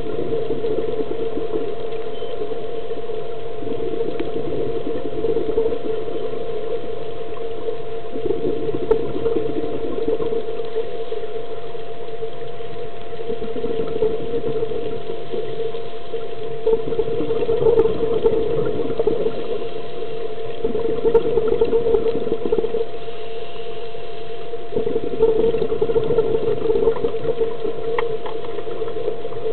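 Underwater sound through a diving camera housing: a steady mechanical hum, engine-like, with surges of rushing noise every few seconds, typical of a scuba diver's exhaled regulator bubbles.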